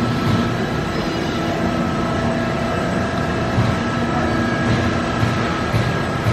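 Steady machine hum with several constant whining tones above it: the Amada RG-1030LD press brake's hydraulic pump and motor running at idle.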